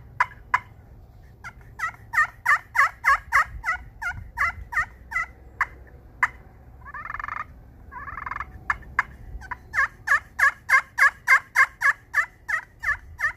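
Wet turkey pot call played with a solid acrylic striker topped with snakewood: a few single clucks, a quick run of yelps, two short purrs, then a longer run of yelps at about three a second. Though soaking wet, the call still plays clean notes.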